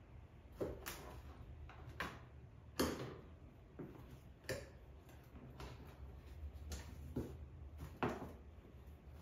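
Cardboard box knocking, rustling and scraping on a vinyl floor as kittens bat at it and push it around: about ten irregular knocks, the loudest about three seconds in and about eight seconds in.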